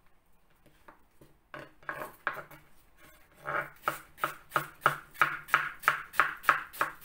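Kitchen knife chopping a piece of apple on a cutting board: a few scattered strokes, then a steady run of about three chops a second from about halfway in.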